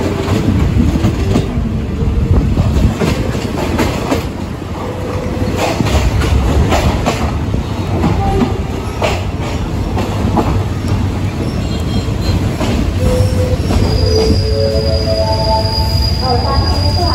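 Ex-JNR passenger coach rolling slowly out of a station on a Thai line, heard at its open doorway: a low rumble of wheels with irregular clacks over rail joints and points, and a high, steady wheel squeal setting in near the end.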